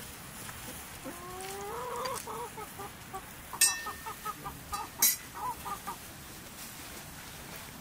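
Chicken calling: one rising call lasting about a second, then a run of short clucks a few seconds in. Two sharp clinks stand out over the clucking.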